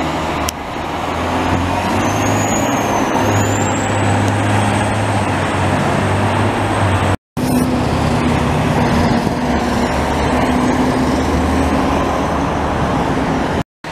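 Diesel fire trucks driving past without sirens: a deep, steady engine drone with road noise as an aerial ladder truck goes by, a faint high whistle wavering above it for a few seconds. After a brief dropout about seven seconds in, a pumper truck passes with the same engine drone.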